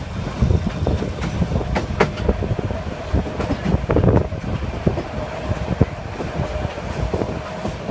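Yangon Circle Line passenger train running on its track: a steady low rumble with irregular sharp clacks and knocks of the wheels over the rails.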